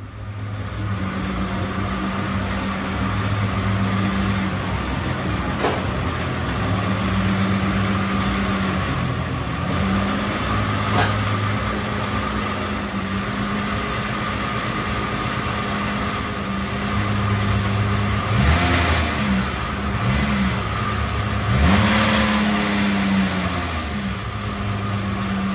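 BMW E28 524td's 2.4-litre turbodiesel straight-six running as the car is driven slowly into the bay, then revved briefly twice near the end.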